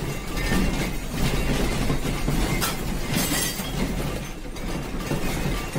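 Crockery, glass and other household objects rattling and clattering as a room shakes in an earthquake, over a steady low rumble, with a louder flurry of rattling about three seconds in.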